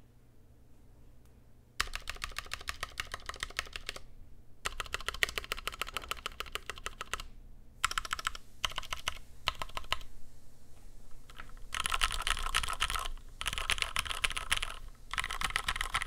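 Typing on an Idobao ID80 75% mechanical keyboard fitted with Cherry MX Black linear switches and PBT keycaps. The typing starts about two seconds in and comes in fast bursts of a second or two with short pauses between them.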